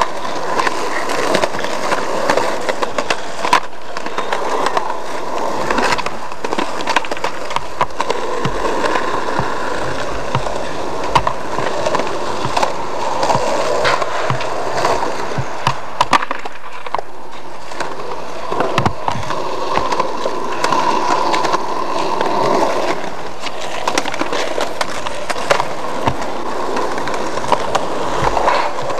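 Skateboard wheels rolling on rough concrete, with scattered sharp clacks of boards striking the ground.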